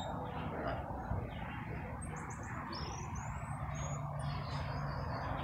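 Marmoset giving a few short, very high-pitched chirps about two seconds in, followed by a quick rising squeak and one more short high note.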